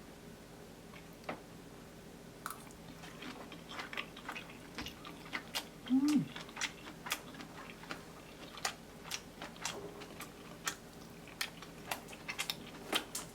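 A person chewing food, with irregular crackling clicks throughout and a short falling hummed 'mm' about six seconds in.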